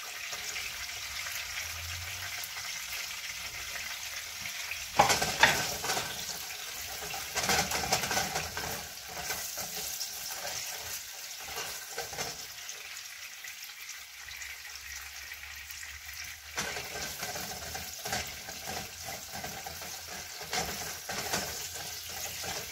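Sliced onions and chopped garlic sizzling in hot oil in a frying pan, sautéing toward golden brown, while a silicone spatula stirs and scrapes them around the pan. The hiss is steady, with several louder bouts of stirring, the loudest about five seconds in.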